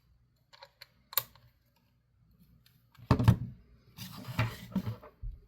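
A few small clicks, then louder clattering and rustling as a toy's plastic battery compartment is handled. A dull thump near the end.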